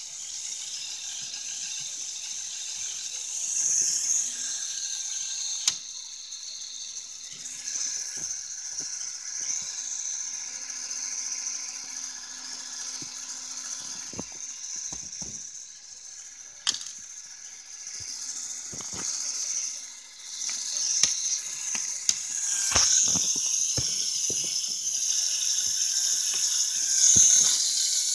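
Lego Technic bucket wheel excavator running: its electric motors and plastic gears and conveyor belts whir steadily, high-pitched, with scattered clicks and rattles and a few sharper clicks.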